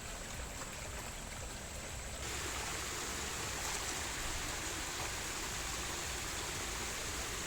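Flowing water of a small hill stream: a steady, even rushing that gets a little louder about two seconds in.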